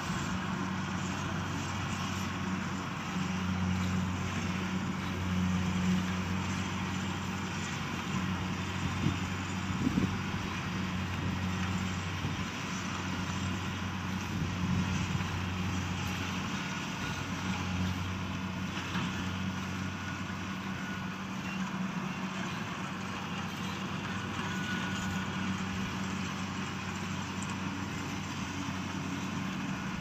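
Kubota rice combine harvester's diesel engine running steadily under load as it harvests, a constant even drone.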